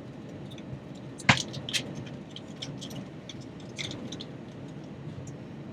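Steady airliner cabin hum. A sharp clink comes about a second in, then a run of small clinks and clicks from cups and glassware being handled during drink service.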